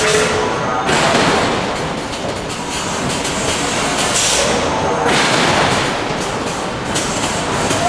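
Continuous heavy industrial noise from a forge with hydraulic forging hammers working, with a louder hissing surge about four seconds in.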